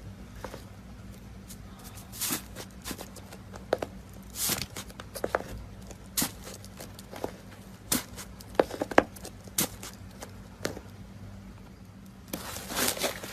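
Slime being pressed and stretched by hand, giving irregular sticky pops and clicks. A denser crackling starts about a second before the end.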